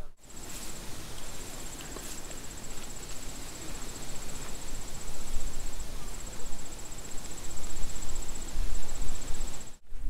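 Insects trilling steadily in a high-pitched, finely pulsed buzz, breaking off briefly a few times, over a low rumbling noise that grows louder near the end.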